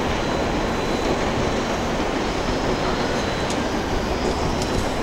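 Trains running on the tracks at Tokyo Station, a steady, even noise with no clear beginning or end.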